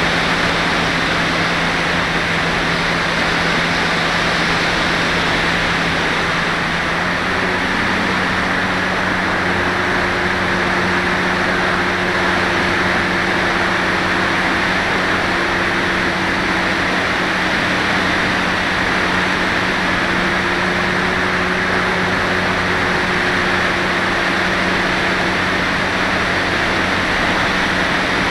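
Onboard audio from an FPV glider in flight: steady wind noise from the airflow over the airframe and camera, with a low steady hum that steps up slightly in pitch about seven seconds in.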